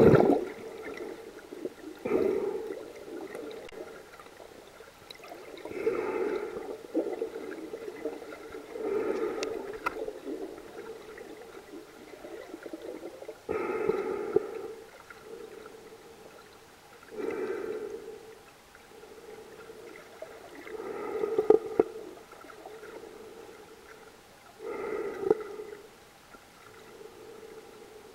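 A snorkeler breathing through a snorkel, picked up underwater: a regular breath about every three to four seconds, with a gurgle of water in the tube.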